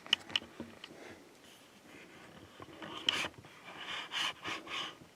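Handling noise while working on a desktop PC case: a few light clicks, then several short rubbing scrapes a little over halfway through.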